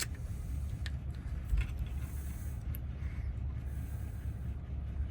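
A few faint, scattered metallic clicks of a key being worked in a corroded car door lock cylinder, over a steady low rumble.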